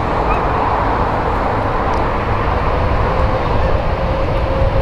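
Steady rumble and hiss of taxiing twin-engine jet airliners, with a thin engine whine that settles lower from about three seconds in.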